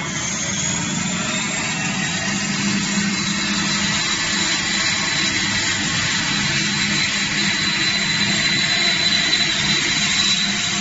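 CNC vertical wire foam cutting machine running while its upright cutting wire works through a foam block: a steady mechanical hum and hiss with a thin, constant high-pitched tone.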